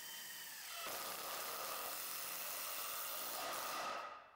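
Makita cordless impact driver driving a screw into softwood: the motor whirs steadily for about the first second, then the sound turns louder and rougher as the driver bears down against the screw's resistance, stopping near the end.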